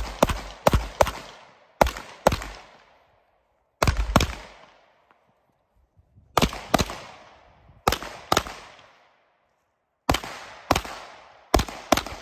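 Pistol fired in quick pairs and short strings of shots, with pauses of one to two seconds between strings; each shot is a sharp crack that trails off in an echo.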